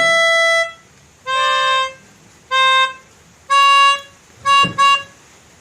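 Pianika (melodica) being blown: six separate reedy notes, the first held longest, the last two short and quick.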